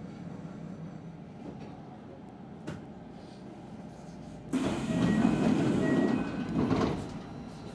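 Standing electric commuter train humming steadily at a station stop. About halfway through, a loud burst of noise starts abruptly, lasts two to three seconds and fades away.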